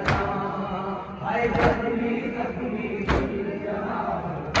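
A crowd of men chanting a noha in unison, punctuated about every second and a half by a loud collective slap of hands striking chests (matam) in time with the chant.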